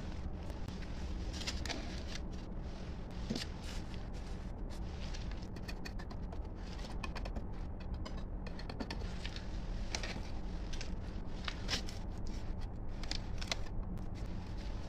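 Small pointed trowel scraping and patting wet cement mortar as it is spread and smoothed inside a round mold: short, irregular scrapes and ticks over a steady low hum.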